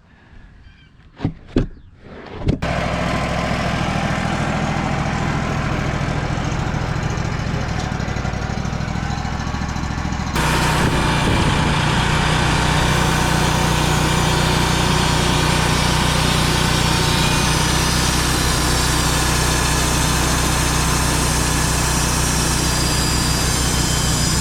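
A Wood-Mizer portable sawmill's engine starts abruptly after a few sharp clicks and runs steadily. About ten seconds in it throttles up to a louder, higher running speed.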